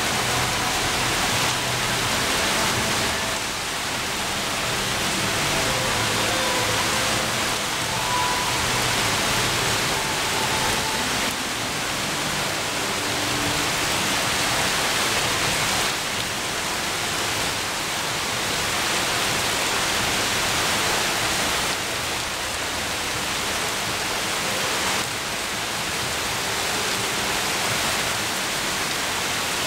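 Heavy monsoon rain pouring steadily onto a stand of trees, an even dense hiss.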